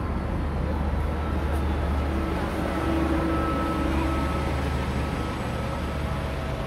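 Steady low rumble of background noise, with a faint steady hum.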